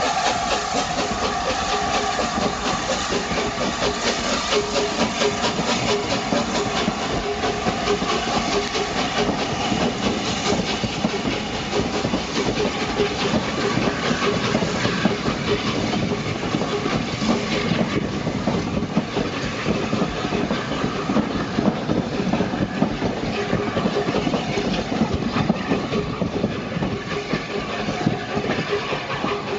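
LNER A4 Pacific 60007 'Sir Nigel Gresley', a three-cylinder steam locomotive, pulling away with its train. Rapid exhaust beats and steam hiss are mixed with the clatter of the coaches' wheels over the rails as they pass.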